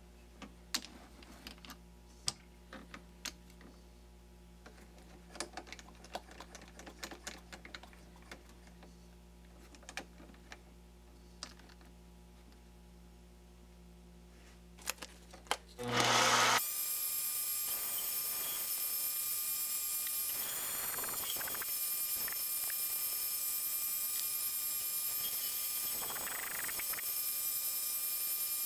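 Mini lathe: for about the first sixteen seconds only a faint hum and scattered small clicks and knocks as the tooling is handled. Then the spindle motor starts, and the lathe runs steadily and much louder with a high whine.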